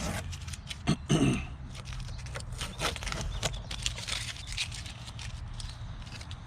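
Masking tape being peeled off the bumper cover: irregular crackling and rustling, with a brief cough-like voice sound about a second in.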